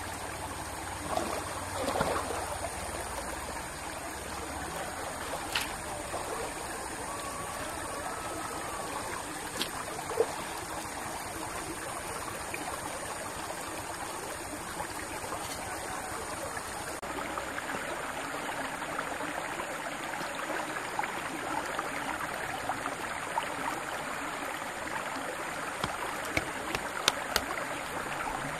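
Clay bricks knocking a few times as they are set down and shifted on soil, over a steady rushing background and a high, even insect drone.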